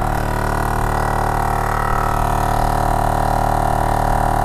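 Gobege portable off-road air compressor running steadily while inflating a tire, a loud, even drone with many stacked tones.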